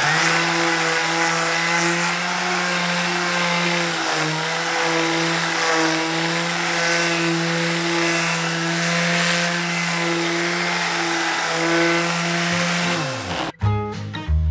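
Electric sander running at a steady pitch while sanding wood, then spinning down near the end as it is switched off.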